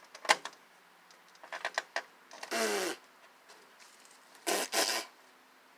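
Metal clanks and scrapes from a rusty old microwave being broken apart: a sharp knock, a quick run of clicks, then a short scrape with a falling squeal, and another rattling scrape near the end.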